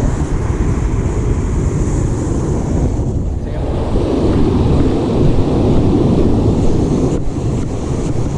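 Wind buffeting the microphone over ocean surf breaking on the beach, with a wave washing in louder from about four to seven seconds in.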